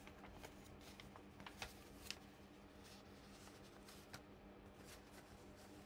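Faint rustling and a few soft crinkles of a sheet of paper being folded over by hand into an eight-page zine.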